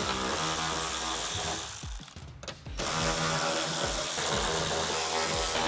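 Cordless drill spinning a 10 mm socket on an extension to back out bolts, running in two spells with a short break a little after two seconds in. Background music with a steady beat plays underneath.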